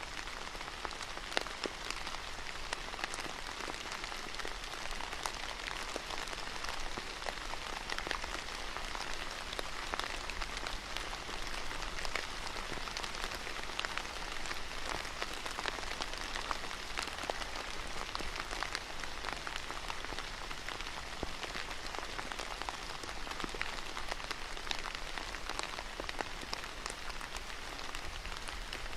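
Steady rain falling on a paved terrace, an even hiss of rainfall with many individual drops pattering and ticking on hard surfaces.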